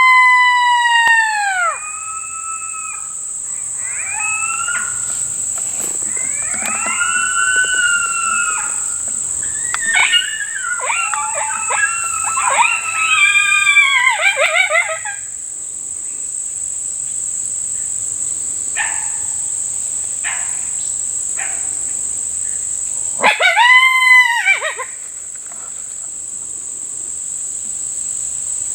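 A group of coyotes howling and yipping: a long held howl that drops off in pitch about two seconds in, then several voices overlapping in a wavering chorus of yips and howls for about ten seconds, and one more short rising-and-falling howl near the end.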